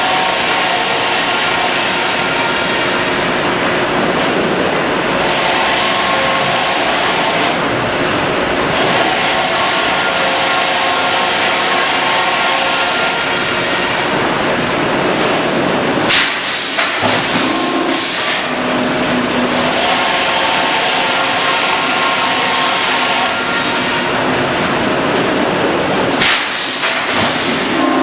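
Sawmill machinery running with a loud, steady mechanical din and faint held tones. Two short, loud hissing bursts come through, about two-thirds of the way in and again near the end.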